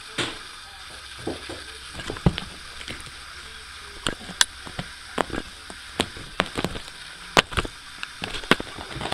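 Irregular sharp clicks and scuffs, a few a second, as a cat tussles with and bites a black fabric strap toy on carpet close to the microphone.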